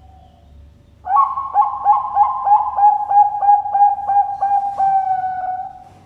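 Bangkok perkutut (zebra dove) singing its cooing song. It starts about a second in as a quick run of short staccato coos, about four a second, and ends in one longer held note just before the end.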